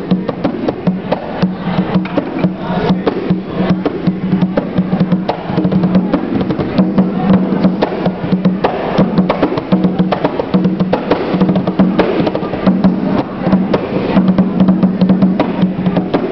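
Atabaque, a tall rope-tensioned wooden Brazilian hand drum, played by hand in a fast freestyle: a dense run of slaps and strokes over the drum's low ringing open tone.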